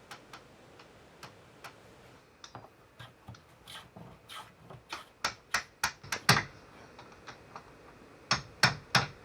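Hand tools knocking on timber: irregular sharp taps, faint at first, louder and closer together from about five seconds in, with a quick run of strikes, about three a second, near the end.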